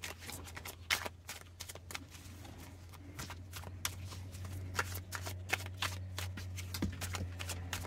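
A deck of tarot cards being shuffled by hand: an irregular run of quick soft card flicks and slaps, over a low steady hum.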